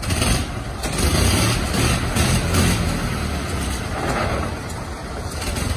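Several antique car engines from the 1910s and 1920s, just started by hand crank, running together in a continuous low, uneven rumble.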